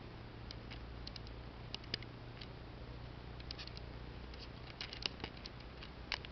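Quiet outdoor ambience: a faint steady low hum under scattered short, high-pitched ticks.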